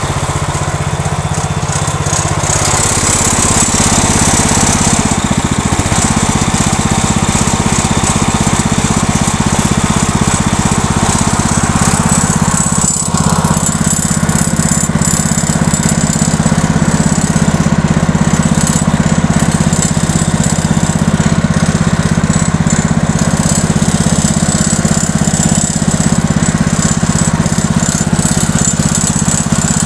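Small tractor's engine running steadily while driving over snow, with a brief dip about halfway through.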